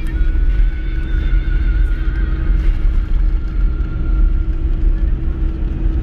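Car's engine and tyre rumble heard from inside the cabin while driving steadily on a snow-covered road, with music playing underneath.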